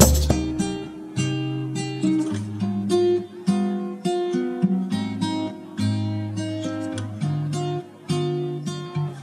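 Background music: an acoustic guitar playing picked and strummed chords that change every second or so.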